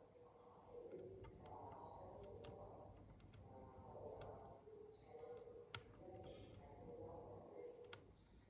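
Faint, scattered small clicks and ticks of a hand tool working the bent pins of a motherboard CPU socket, with one sharper click past the middle, over a faint background murmur.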